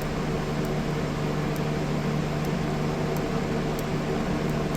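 Steady machine hum with a low droning tone, unchanging throughout.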